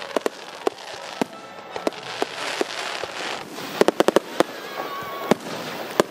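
Aerial fireworks bursting in quick succession: sharp bangs throughout, several close together about four seconds in, over a continuous crackle and hiss.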